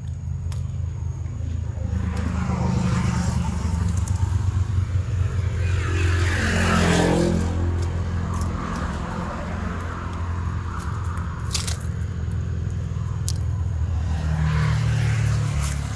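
Motorcycle riding at speed: engine running steadily with road noise, its pitch falling and rising again about halfway through.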